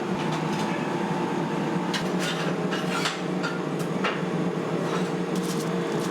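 Kitchen noise in a burger shop: a steady machine hum, with a few short clicks and clatters about two, three, four and five and a half seconds in.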